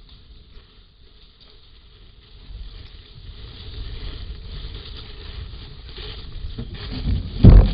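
Forest elephants moving close past a trail camera. Low rumbling noise builds from about two seconds in, and a loud low thud comes near the end as one reaches the camera.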